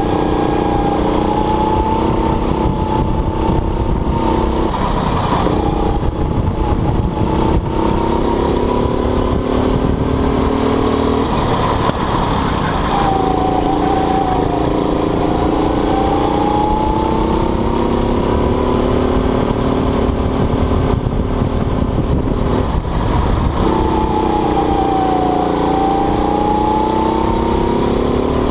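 Go-kart engine heard from on board at racing speed, its pitch dropping as it slows into corners and climbing again on the straights several times, over a steady low rumble.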